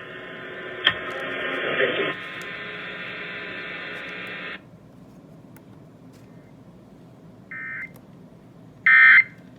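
Radio hiss with a click about a second in, cutting off after about four and a half seconds. Then come two short, buzzy digital data bursts about a second and a half apart, the second louder: Emergency Alert System end-of-message tones over FM radio.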